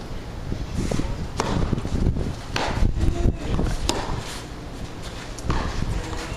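Tennis balls struck by rackets in a practice rally on a clay court: a sharp pop every second or two, with fainter ball bounces between, over a steady low rumble.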